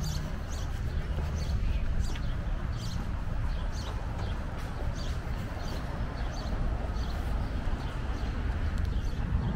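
Footsteps on pavement at a steady walking pace, about two a second, over a constant low rumble of outdoor background noise.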